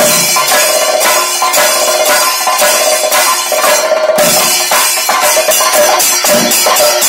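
Thayambaka ensemble: chenda drums beaten in a fast, loud rhythm, with ilathalam hand cymbals clashing in time.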